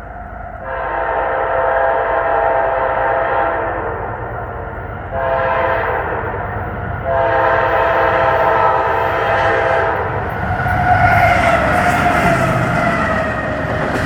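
Freight locomotive air horn sounding a long blast, a short blast, then a long blast, as a fast CSX double-stack train approaches. The pitch of the last blast drops as the locomotive passes, with the rumble of the train building underneath.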